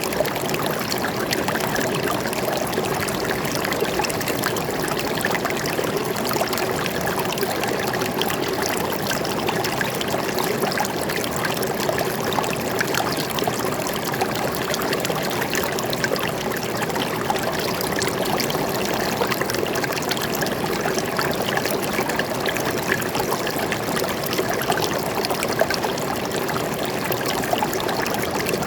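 A forest stream flowing and trickling steadily, a constant babble of small splashes.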